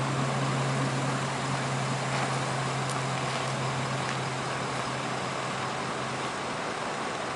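Firefighting air tanker's engine running steadily on the runway, a low even drone over a broad hiss, the drone fading out near the end.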